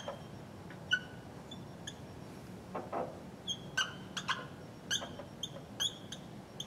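Dry-erase marker squeaking against a whiteboard in about a dozen short, irregular strokes of handwriting.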